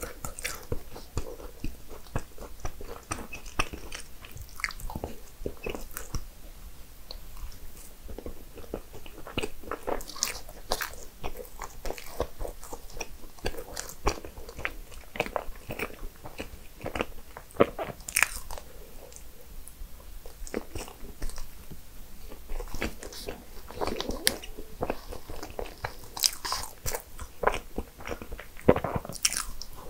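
Eating sounds: biting into and chewing desserts, with many short crisp crunches and clicks throughout and a few louder bites.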